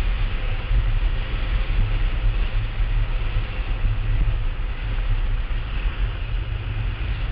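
Wind buffeting the microphone of a camera riding on a blokart under sail, a heavy fluctuating rumble, over a steady hiss of rushing air and wheels rolling on the hard lakebed.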